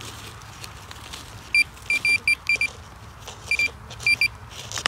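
Metal detector beeping in short, quick, irregular bursts of one high tone as it is passed over a dug-up clod of soil, signalling that the buried target is in the clod. About a dozen beeps come in two clusters, starting about a second and a half in.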